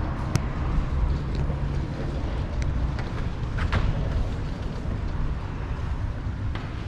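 Low steady rumble on the camera microphone, with a few short sharp clicks.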